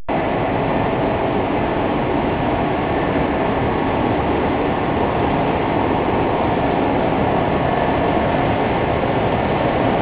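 Industrial blanket washing machine running: a loud, steady mechanical rumble with a faint steady hum.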